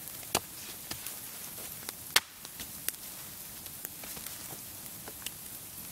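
Small wood fire crackling, with scattered sharp pops over a steady hiss; the loudest pop comes about two seconds in.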